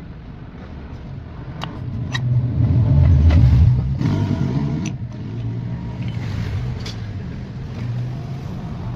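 Honda scooter engine revved up about two seconds in, then dropping back to a steady run, with a few sharp clicks.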